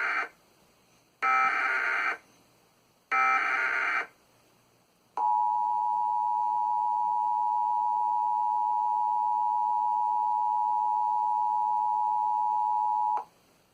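Emergency Alert System activation: the end of one SAME header data burst, then two more harsh digital data bursts about a second long each, a second or so apart. These bursts carry the encoded alert header. After a short pause comes the EAS two-tone attention signal, 853 and 960 Hz sounding together. It holds steady for about eight seconds, cuts off sharply, and marks the start of an emergency warning broadcast.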